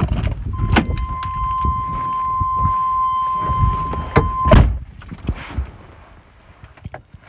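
Ice-covered pickup truck door pulled open with a crunching burst, a steady high warning tone sounding in the cab, then the door slammed shut about four and a half seconds in, the tone stopping with it; a few lighter knocks follow.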